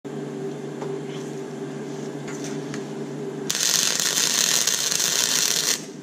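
MIG welder humming with a few light clicks, then the welding arc crackling and hissing loudly for about two seconds before it stops suddenly and the hum carries on.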